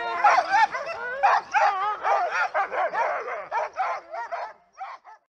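A team of harnessed sled dogs yelping and barking excitedly, many short high calls overlapping, the typical clamour of sled dogs eager to run while being hitched up. The calls thin out and fade away near the end.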